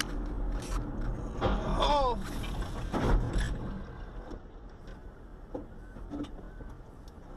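Car crash heard from inside a passing car: over steady road noise, the driver gives short shouted exclamations, and about three seconds in a pickup truck slams into another vehicle with a single loud crash.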